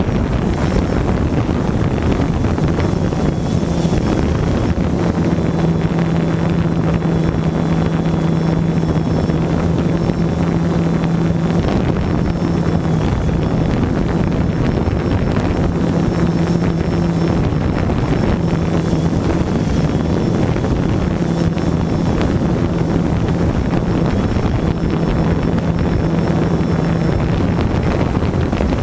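Quadcopter drone's motors and propellers running in flight, a steady hum that dips out briefly now and then, mixed with wind on the camera microphone.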